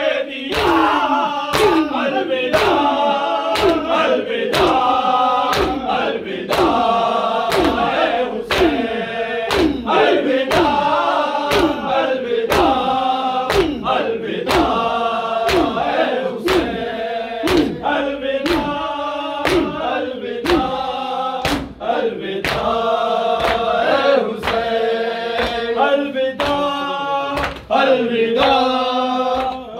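Group of men chanting a Shia mourning nauha in unison while beating their chests with open hands (matam), the slaps landing together on a steady beat a little faster than once a second.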